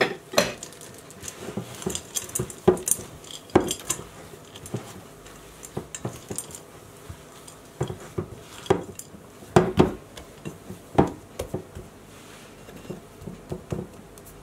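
A glass mixing bowl knocking and clinking irregularly as cookie dough with chocolate chips is kneaded by hand in it.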